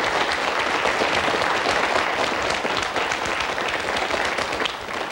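Studio audience applauding, a dense patter of many hands clapping together that eases slightly near the end.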